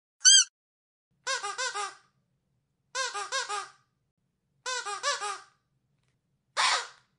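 Dog's squeaky toy squeezed over and over: one short squeak, then three quick runs of about four squeaks each, and a longer, hoarser squeak near the end.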